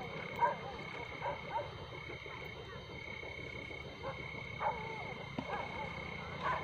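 Distant dogs barking off and on: a handful of short calls, some bending in pitch. Underneath, a steady high-pitched drone of night insects.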